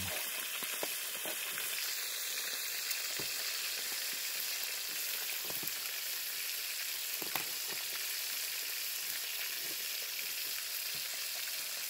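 Fish frying in oil in a pan on a portable gas camping stove, sizzling steadily with scattered crackles and pops.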